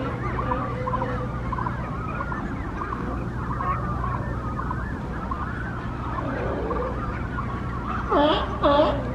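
Brandt's cormorant nesting colony: a constant chorus of many overlapping calls from adults and chicks, with two louder calls near the end.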